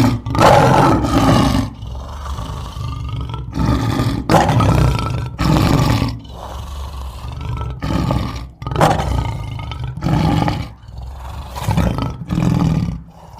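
Lion roaring: a run of loud, deep calls coming about every one to two seconds.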